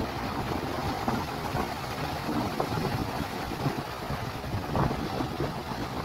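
Sea surf: waves breaking and foaming in a steady wash, with wind blowing across the microphone as a constant low rumble.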